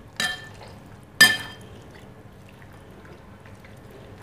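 Stainless steel potato masher striking a glass bowl as it mashes soft boiled tomatoes and ridge gourd: two ringing clinks about a second apart, the second louder.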